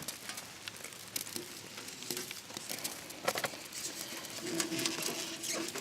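Rain pattering, with scattered sharp clicks and taps.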